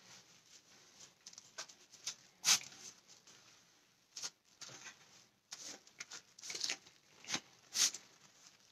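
Paper towel rustling and crinkling as a gloved hand wipes over skin, in a dozen or so short, irregular scuffs.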